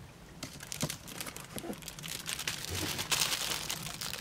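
Plastic wrapping of a car-wash sponge crinkling as it is handled and opened, sparse crackles at first, growing denser and louder over the last second or two.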